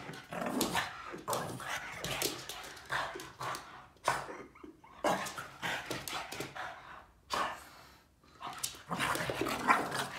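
Boston terrier giving short, excited barks and yips while jumping up in play, with a couple of brief pauses.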